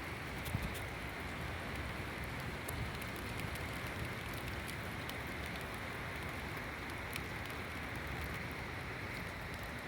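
Steady rain falling, with a few scattered sharp drop ticks.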